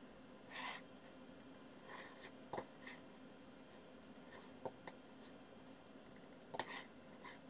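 Faint computer mouse clicks, a few scattered single clicks and a quick double-click near the end, over a faint steady hum.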